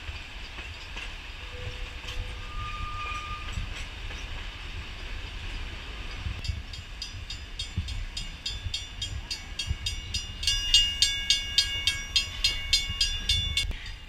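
Steam-hauled passenger train passing close by, its carriage wheels clicking over the rail joints in a steady rhythm from about halfway through, growing louder near the end with a high squeal of several tones held for about three seconds.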